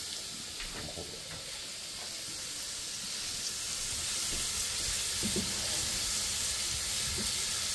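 Chicken thigh pieces frying in olive oil in a pot, a steady sizzle that slowly grows a little louder.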